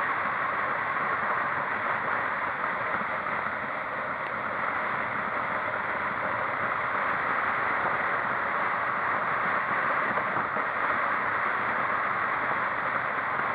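Steady rushing road and wind noise of a vehicle on the move, with no distinct engine note standing out.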